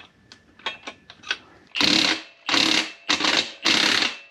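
A few light metal clicks, then a ratchet wrench ratcheting in four strokes of about half a second each, worked on a fastener at the motorcycle's rear axle.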